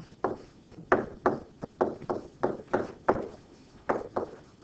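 A stylus tapping and knocking against a writing surface during handwriting: about a dozen sharp, uneven taps in quick clusters.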